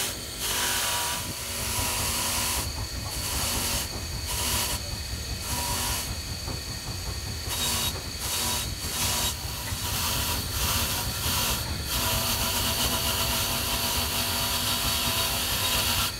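Wire wheel brush on a bench motor scouring the teeth and shaft of a differential pinion gear: a loud scratchy hiss over the hum of the motor, broken by short gaps through the first twelve seconds as the gear is shifted against the wheel, then unbroken.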